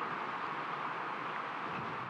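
Steady, even rush of sea waves washing onto a rocky shore.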